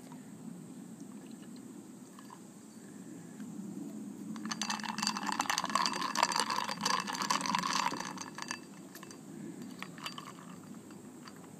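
Lactic-acid soda poured into a glass of ice, fizzing and crackling with ice cubes clinking against the glass, loudest for about four seconds in the middle. A few lighter clinks follow near the end as more is poured.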